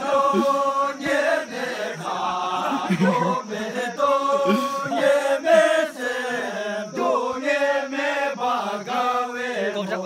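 A group of men singing a Bhutanese circle-dance song together in a chant-like style, holding long notes with short breaks between phrases.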